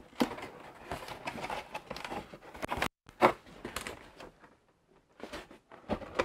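Cardboard packaging and paper rustling, scraping and clicking as parts are lifted out of a cardboard box. The handling noise cuts out suddenly about three seconds in, then comes back sparser and fainter.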